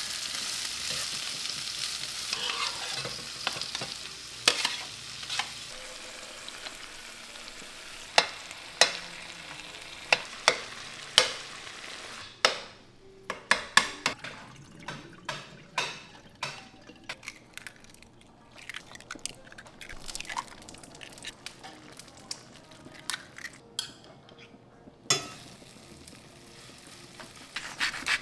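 Food sizzling in a frying pan as it is stirred, with sharp clicks of a utensil against the pan. The sizzle fades after about twelve seconds, leaving mostly quick taps and scrapes.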